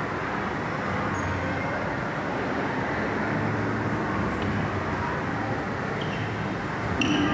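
Steady rumbling background noise with a low hum, and a brief high-pitched squeak about seven seconds in.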